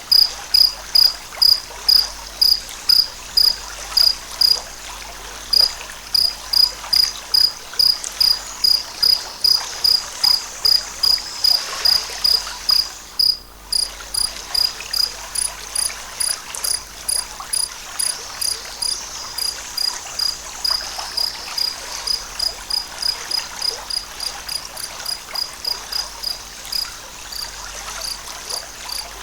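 An insect, most likely a cricket, chirping in a steady rhythm of short high chirps, about two a second. The chirps pause briefly after about 4 s and grow weaker toward the end.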